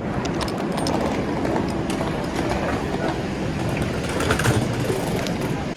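Passenger train running on its rails: a loud, steady rushing noise with scattered clicks and rattles.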